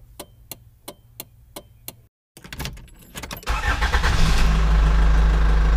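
Intro sound effects: a film-countdown leader ticking evenly, about three ticks a second, then after a brief gap a loud, steady car engine sound comes in about three and a half seconds in and keeps running.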